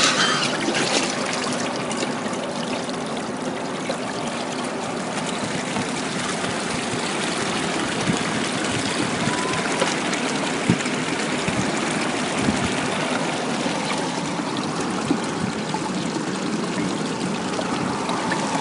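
Paddy water pouring steadily over the pressed-down plate of an improved paddy water gate and running out through its drain pipe: the paddy being drained.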